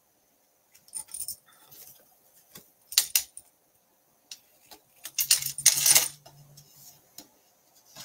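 Cardstock and crafting tools handled on a glass craft mat: light taps and rustles, a sharp clink about three seconds in, and a longer scraping rustle about five to six seconds in.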